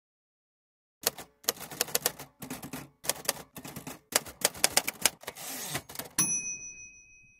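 Typewriter keys clacking in uneven quick clusters, starting about a second in, then a short rasp and a single bell ding that rings on and fades.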